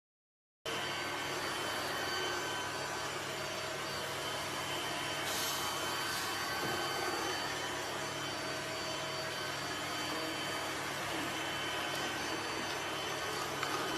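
A steady machine-like whirring noise with faint high whining tones, starting abruptly just under a second in and running on evenly.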